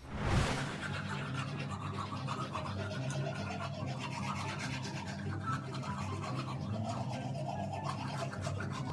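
Teeth being brushed with manual toothbrushes, a scrubbing sound, over background music. A swish sound effect opens it.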